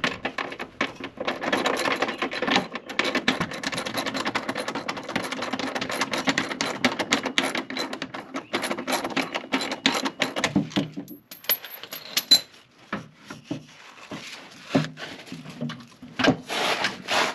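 Rapid metal clattering and scraping as the removed exhaust pipe is worked loose and pulled out from under the car. The clatter is dense for the first ten seconds or so, then thins to scattered knocks.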